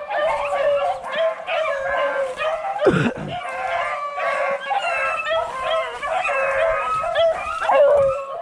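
A pack of beagles baying and howling on a rabbit's trail, several dogs giving voice at once in long overlapping cries. A sharp knock about three seconds in.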